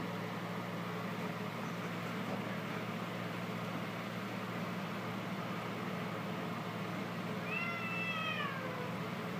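A long-haired cat gives one drawn-out meow that falls in pitch, near the end, over a steady background hum.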